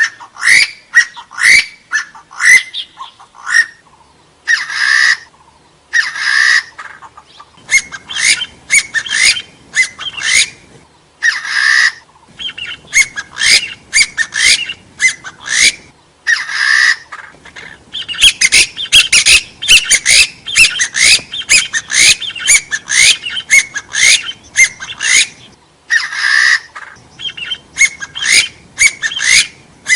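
Hill partridges (gà so, Arborophila) calling: quick runs of short rising notes, with brief pauses and a few longer, harsher notes about half a second long.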